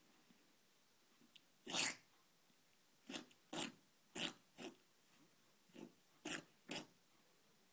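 Pet rabbit sneezing over and over: about eight short, sharp sneezes, one about two seconds in and the rest in quick succession in the second half.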